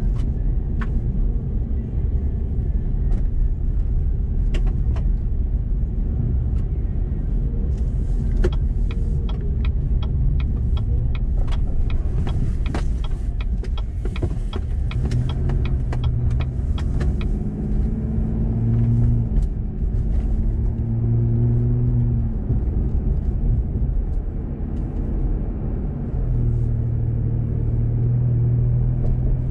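Chevrolet Colorado Z71 pickup driving, heard from inside the cab: steady road and tyre rumble with a run of sharp clicks through the middle. From about halfway, the engine note comes up and rises and drops several times as the truck pulls away through the gears.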